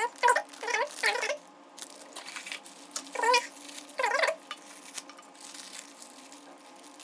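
A cat meowing repeatedly in short high calls: several in quick succession at the start, then two more about three and four seconds in.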